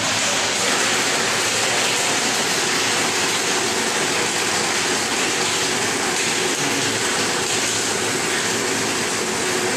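Blender switched on and running steadily at high speed, crushing and blending about 200 g of ice with a matcha mix into an ice-blended drink. It is loud and starts suddenly.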